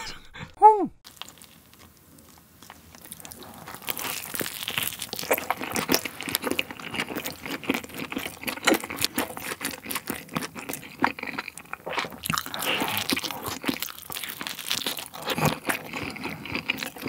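Close-miked biting and chewing of a crisp piece of pizza crust: irregular crunching and crackling with each chew, with softer wet chewing between. A short hummed vocal sound comes about a second in.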